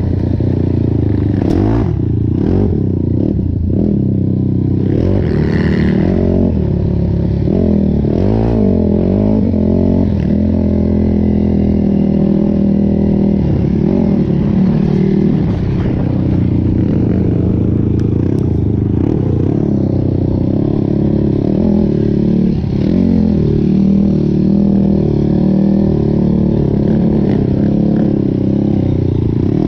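Sport quad's single-cylinder engine running hard on the trail, its revs rising and falling again and again under throttle and gear changes.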